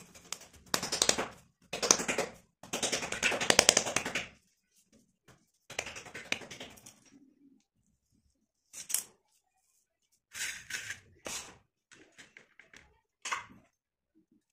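Hands patting and pressing a ball of wet slate-pencil clay flat on a concrete floor: quick soft slaps in three dense runs over the first four seconds. Then a knife scrapes through the clay disc, and a few short, sharp knocks come near the end.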